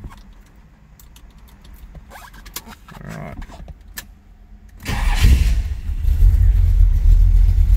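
Keys clicking in the ignition, then the 1974 Chevrolet Corvette's V8, stroked to 383 cubic inches, starts from cold about five seconds in and settles into a loud, steady idle, heard from inside the cabin.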